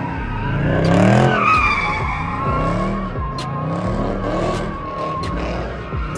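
A car drifting: its engine revs up and down about once a second while the tyres skid and squeal with a steady high tone.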